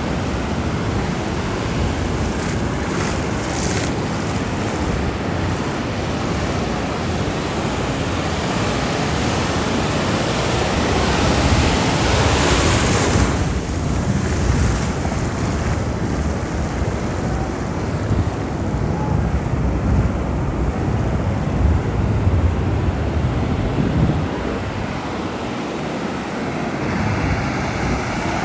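Ocean surf: a steady rush of waves, with one wave breaking and washing up louder about twelve seconds in, then easing back.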